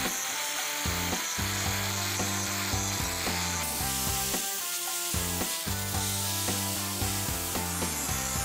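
Angle grinder grinding the cut edge of an aluminium sheet smooth, a rasping abrasive noise that rises and falls, under background music with a steady bass line.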